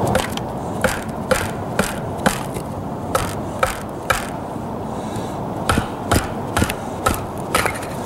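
A trade knife being knocked down through a stick of wood to split it: a run of sharp wooden knocks, about two a second, in three bursts with short pauses between them.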